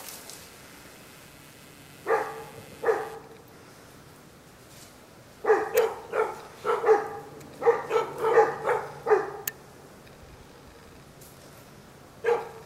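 Dog barking during play: two barks about two seconds in, then a rapid string of about ten barks, and one more bark near the end.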